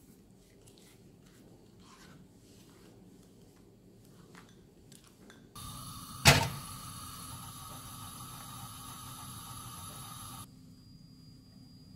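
Faint light scrapes and clicks of a silicone spatula mixing egg yolk and sugar in a small glass bowl. About five and a half seconds in, a steady hum with a thin high whine sets in for about five seconds, with one sharp knock, the loudest sound, just after it starts, then stops suddenly.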